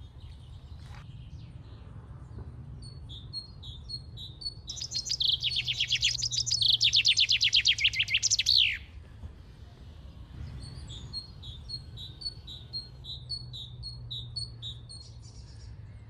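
A male chaffinch sings one song of about four seconds: fast runs of repeated notes ending in a quick downward flourish. Another bird repeats a short, high call note about twice a second.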